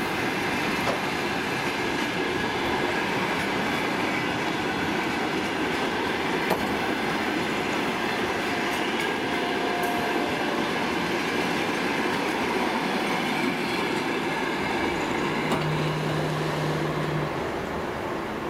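Passenger train coaches rolling past: a steady rumble and rattle of steel wheels on the rails, dropping slightly in level near the end as the last coach moves away.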